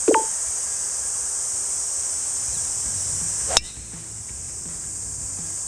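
A driver strikes a golf ball off the tee with one sharp crack about three and a half seconds in, over a steady high-pitched drone of insects. Right at the start there is a short click with a brief ring.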